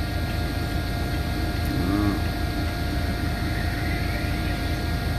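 Camera drone's propellers whining steadily in flight, several steady high tones over a constant low rumble.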